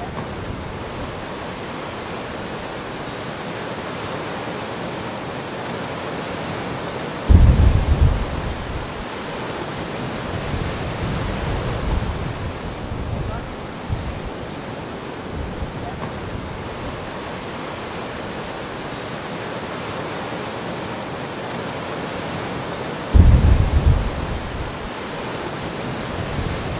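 Rough, storm-churned sea surf and wind, a steady rushing noise. Two sudden loud low rumbles of wind buffeting the microphone come about seven seconds in and again near the end.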